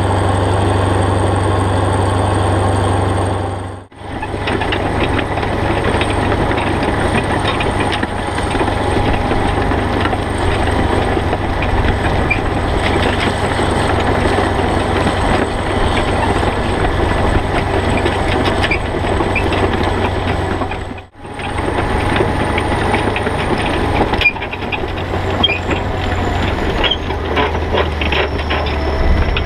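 The diesel engine of a Kirovets K-700A tractor running steadily under load while it pulls a Kuhn Discover XM disc harrow. From about four seconds in, the harrow's discs and frame clatter and rattle over the soil with rapid clicks and knocks, and the engine is further off. The sound drops out briefly twice, about four seconds in and again about two-thirds of the way through.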